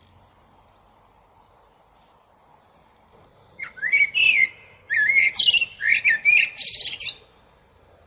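Common blackbird singing: after a few faint, thin high whistles, a loud song phrase of rapid, varied notes begins about three and a half seconds in and stops a little after seven seconds.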